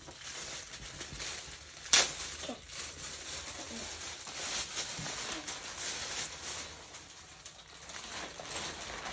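Clear plastic packaging bag crinkling and rustling as it is handled and pulled open, with one sharp crackle about two seconds in.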